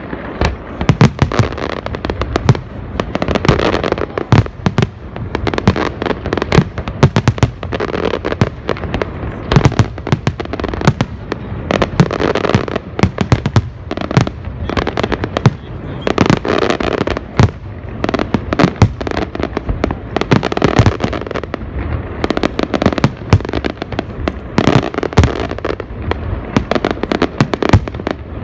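Fireworks display: a continuous barrage of aerial shell bursts and crackle, several loud bangs a second without a break.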